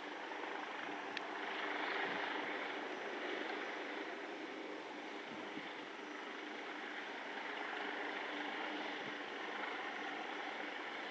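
Steady mechanical drone of an engine, with faint steady tones under a wash of noise, swelling slightly about two seconds in and again later.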